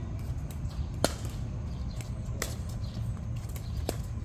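A ball struck sharply three times during a rally, each hit a short crack about a second and a half apart, the first the loudest, over a steady low outdoor rumble.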